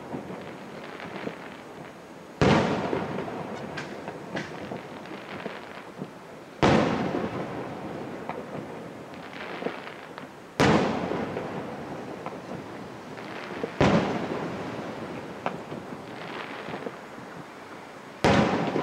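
Aerial firework shells bursting one after another: five sharp bangs roughly every three to four seconds, each followed by a long rumbling echo that dies away, with a few small pops in between.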